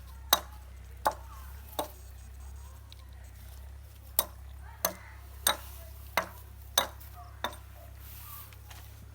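A series of about nine sharp knocks, roughly two every three seconds, with a pause of about two seconds between them, over a steady low hum.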